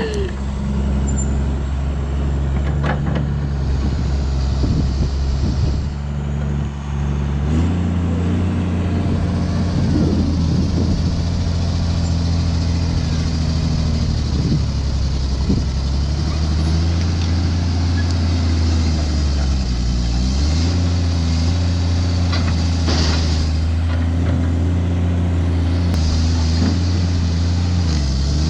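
An engine running steadily under load. Its pitch steps up about seven seconds in, then dips briefly around twenty seconds and comes back up.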